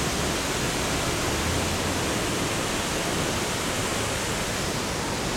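Waterfall on a mountain stream: water pouring and splashing in a steady, unbroken rush.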